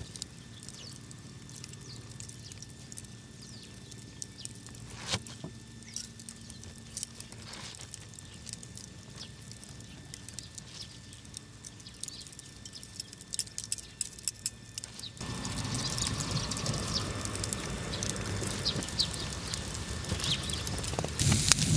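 Quiet outdoor background with a few light clicks of metal cutlery being handled. About 15 seconds in, it changes suddenly to the louder, steady crackle of a small fire under a wire-mesh grill, with light ticks of metal chopsticks on the mesh.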